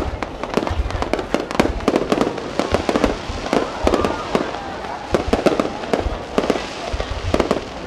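Fireworks display: aerial shells bursting in a continuous, rapid barrage of bangs, several a second.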